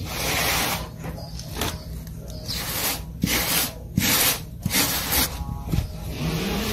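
Scratchy rubbing of a sponge on freshly applied cement render at the foot of a concrete column, in repeated strokes about one a second, with a few light knocks in between. The rubbing is the finishing pass that smooths the new render.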